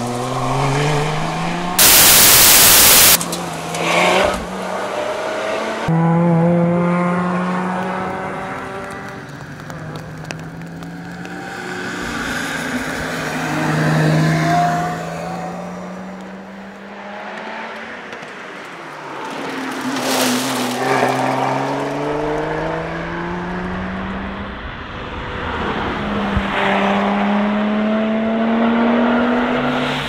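Lotus Exige Sport 350's supercharged 3.5-litre V6 driven hard on a tarmac stage, its pitch climbing under acceleration and dropping at each gear change or lift for a corner, growing louder and fading as the car approaches and passes several times. A loud burst of rushing noise about two seconds in.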